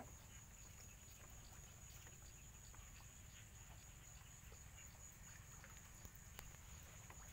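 Near silence outdoors at night: a faint, steady, high-pitched insect drone, with a few faint small ticks.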